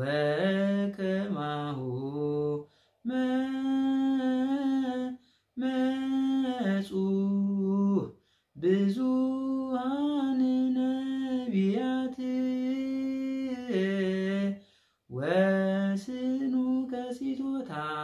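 A man singing an Orthodox Tewahedo hymn (mezmur) solo and unaccompanied, holding long steady notes with ornamented turns between them, in phrases broken by four short pauses.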